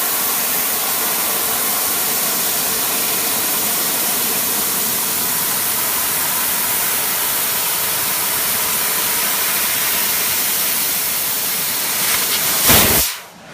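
Fiber laser CNC cutting machine running: a loud, steady hiss, typical of assist gas blowing through the cutting head, with a faint hum under it. Near the end there is a brief louder rush, then the sound cuts off.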